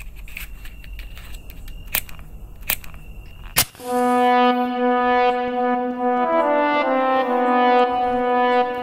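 A few sharp clicks over a low rumble, then about four seconds in, film-score music enters: a loud sustained chord of held notes, with lower notes joining and the chord shifting.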